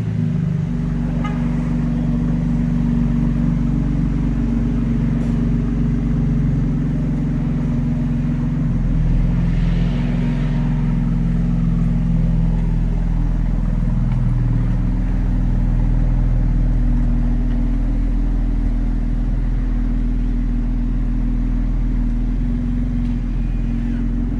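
BMW X3 M Competition's twin-turbo inline-six engine idling steadily.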